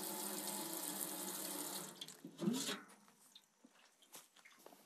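Water from an outdoor tap running into a large metal basin, rushing steadily with a held tone. It is shut off about two seconds in. A brief short sound and a few faint clinks follow as the full basin is handled.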